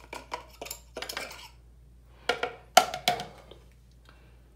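A piece of wire being poked and scraped through the 2 mm bore of a toilet fill valve's plastic tube to clear out the dirt clogging it: irregular bursts of short scraping clicks and rattles, loudest about three seconds in.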